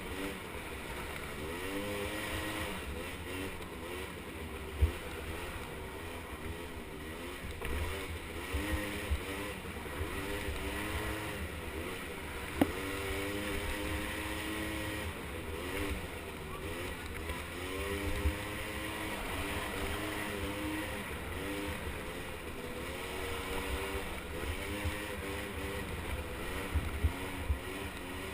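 Small 50cc ATV engine revving up and down again and again as it is driven, its pitch rising and falling every second or two.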